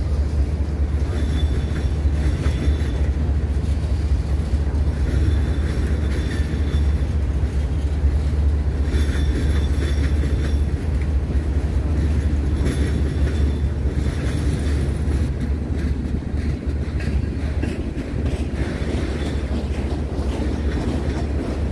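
Train rolling past with a steady rumble of wheels on the rails, and faint high wheel squeals coming and going every few seconds.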